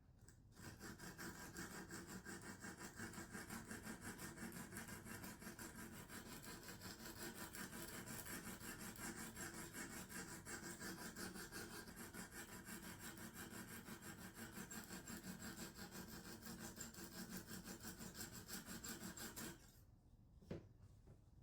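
Coarse diamond hone of a Lansky guided sharpening system stroked rapidly back and forth along a knife edge, a faint, even scraping rhythm that stops about a second and a half before the end, followed by a small click. The strokes are working up a burr on one section of the blade.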